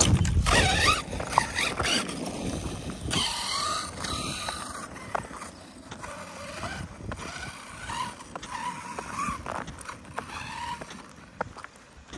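Arrma Kraton 6S RC truck's brushless motor whining, rising and falling in pitch with the throttle, over gravel crunching under the tyres. Loudest about the first two seconds as it passes close, then fainter as it drives away.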